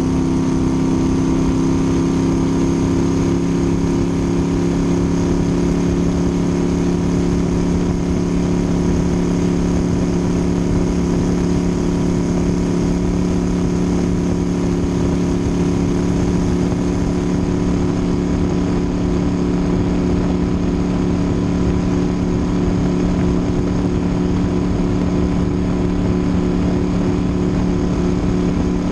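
Twin-turbo V8 of a 1600-plus-horsepower ski race boat running at a steady cruise, heard from on board close to the engine, its note holding level over a constant rush of wind and water.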